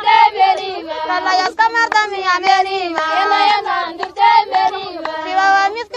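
A song sung in a high voice, the melody holding notes and sliding between them.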